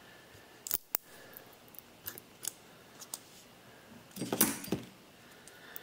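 Light metallic clicks and scrapes of a screwdriver blade prying a neodymium magnet off its steel hard-drive bracket, with a denser burst of clicking and rattling about four seconds in as the magnet comes free and is handled.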